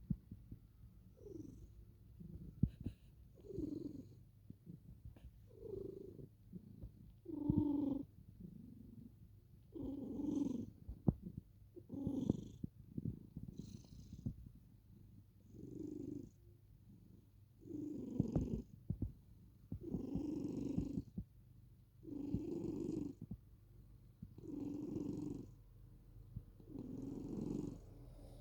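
Domestic cat purring close up, the purr swelling and easing in a regular rhythm about every two seconds, with a few faint clicks.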